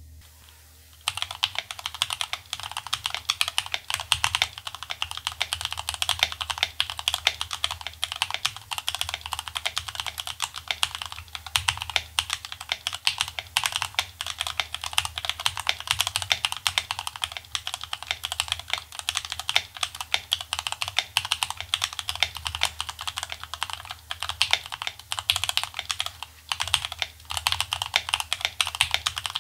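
Fast, continuous typing on a Feker Machinic 02 mechanical keyboard with Gateron Milky Yellow Pro linear switches and POM keycaps, modded with PE foam, a tape mod and lubed stabilizers. The typing starts about a second in and pauses briefly near the end.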